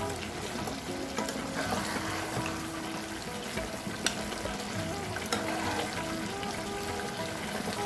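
A spatula stirring and scraping a fish-head and rice mixture in a kadai as it cooks, with a few sharp knocks against the pan, over soft background music.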